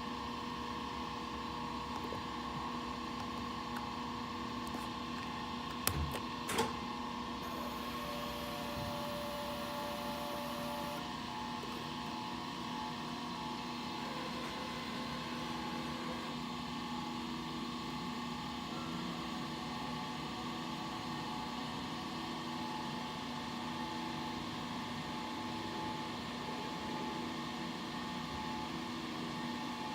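Axis drive motors of an SCMI T130 CNC machine running steadily as it moves into position for a program, a hum of steady tones. There are two sharp clicks about six seconds in, and from about halfway a faint tone switches on and off at a regular pace.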